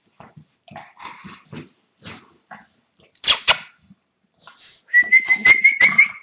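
A dog whining in one held, high, slightly rising tone for the last second or so, with a few clicks over it; two sharp knocks come about three seconds in, and soft short noises before them.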